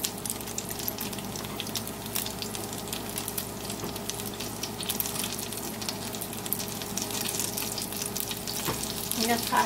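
Battered broccoli florets shallow-frying in hot vegetable oil in a skillet: a steady sizzle full of fine crackling. A fork stirs and scrapes batter in a bowl, and there is a brief louder sound near the end.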